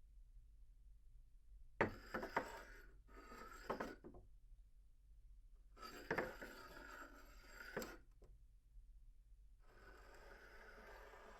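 A glass cup slid across a table three times, heard at medium distance: each slide is a rubbing scrape of about two seconds. The first two begin and end with light knocks of the glass on the tabletop; the third, near the end, is quieter and smoother.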